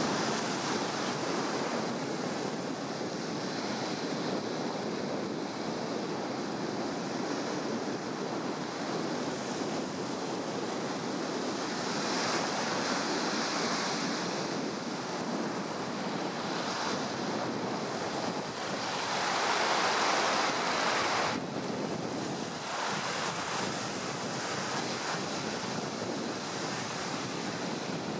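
Surf breaking and washing up the beach, a steady rushing noise, with wind buffeting the microphone. A louder surge comes about two-thirds of the way through and cuts off suddenly.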